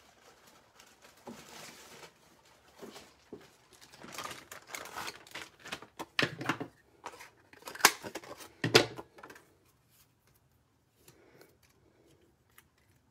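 Cardstock rustling and crinkling in the hands, then a few sharp crunching clicks, the loudest about eight and nine seconds in, as a small flower is punched from a scrap of yellow cardstock with a hand-held craft punch.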